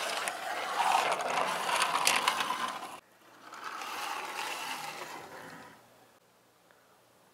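Plastic wheels of a Playmobil toy bicycle and its towed trailer rolling and rattling across a plastic play mat, a steady clicking rattle that cuts off suddenly about three seconds in. A quieter stretch of the same rolling follows and fades away by about six seconds.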